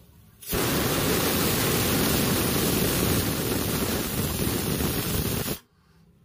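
Hawkins pressure cooker whistling: steam blasting out under the lifted weight valve as a loud, steady hiss, starting abruptly about half a second in and cutting off about five seconds later. It is the sign that the cooker has reached full pressure, one of the whistles counted to time the cooking.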